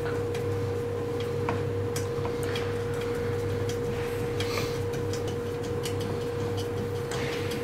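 Light, irregular metallic clicks and ticks as a recoil-housing screw is turned in by hand with an Allen key, over a steady background hum.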